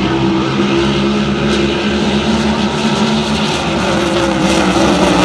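A pack of Grand Prix-class hydroplane race boats running at racing speed, their engines making a loud, steady drone with a slight dip in pitch about three and a half seconds in.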